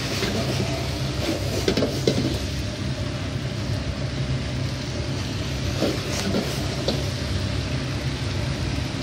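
Steady low roar of a kitchen exhaust fan under onions sizzling in a wok, with a few clinks and scrapes of a metal ladle against the wok as the vegetables are stir-fried.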